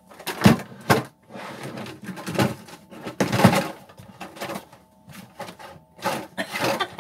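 Metal food tins clunking and rattling together in a plastic basket as it is handled and set down into a bilge locker, with irregular knocks and scrapes.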